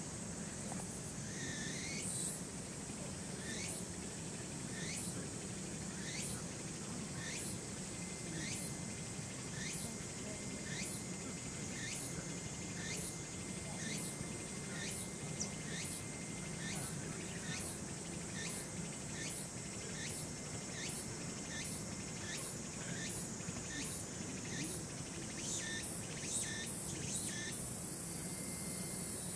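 Cicada calling in a long series of regular, sharp high pulses, about one and a half per second, quickening near the end, over a steady high insect drone.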